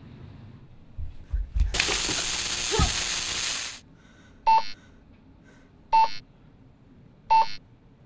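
A few soft thumps, then a rush of hiss-like noise lasting about two seconds, followed by three identical short electronic beeps about one and a half seconds apart from a small electronic device.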